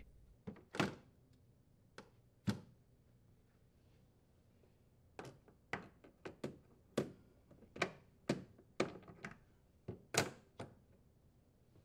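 Steel telescoping slide rails being fitted into a wine cellar cabinet, making sharp metal clicks and knocks. There are two near the start, then a busier run of clicks from about five to ten seconds in as the rails are seated.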